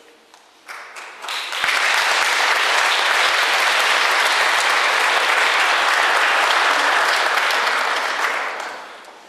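Congregation applauding: clapping swells in over the first second or so, holds steady and loud, then dies away near the end.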